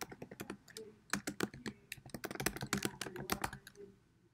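Typing on a computer keyboard: a quick, uneven run of key clicks that stops near the end.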